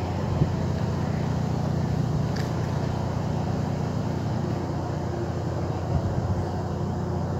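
Steady low background hum with a faint even haze above it, and a couple of soft knocks, one just after the start and one near six seconds in.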